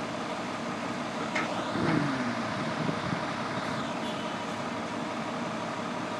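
Fire engine's diesel engine idling steadily in the station bay. A short falling voice-like sound comes about two seconds in.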